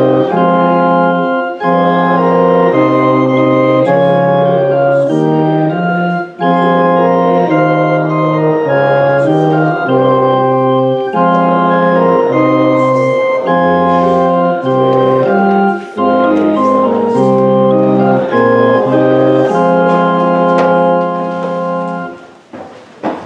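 Church organ playing slow, sustained chords, hymn-like phrases broken by short pauses about every five seconds; the music dies away near the end.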